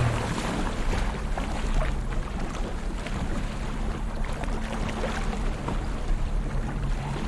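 Sea water sloshing and lapping, with small splashes, over a steady low hum.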